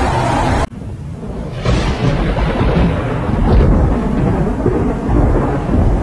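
A brief steady hiss of rain and traffic cuts off within the first second into thunder. A low rumble is followed, a little over a second later, by a sharp crack that rolls away into a long low rumble.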